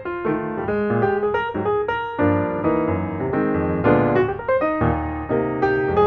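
Background music: a piano playing a steady run of notes and chords.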